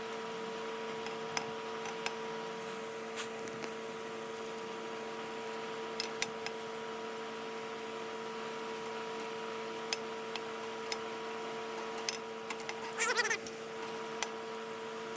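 Electric fan running with a steady hum, with a scattering of sharp ticks and a short wavering squeal about 13 seconds in.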